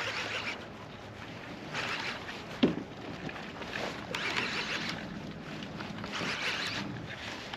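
Baitcasting reel being cranked in short spells, roughly every two seconds, as a fish is reeled in. A single sharp knock sounds about two and a half seconds in.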